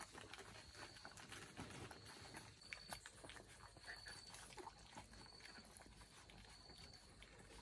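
Near silence: faint scattered clicks, with a faint high-pitched chirp repeating about once a second.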